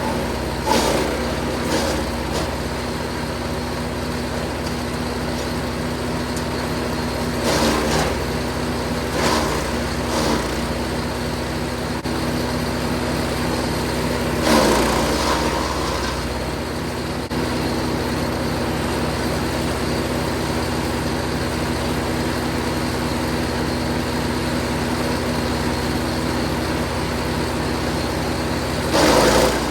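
Jansen 1500e GTS wood chipper running steadily under power, broken by several short, louder bursts of crunching noise as branches are fed through and chipped, the longest about halfway through and another near the end.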